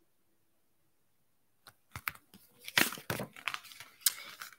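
Paper rustling and crackling as a paperback picture book is handled and its page turned, a run of short crackles starting after a quiet second and a half.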